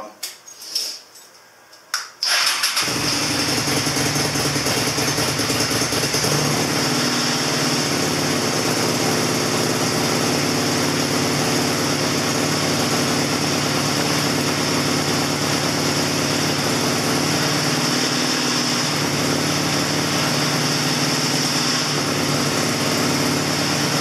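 Honda Shadow VLX 600's V-twin engine starting about two seconds in, catching at once, then idling steadily without revving.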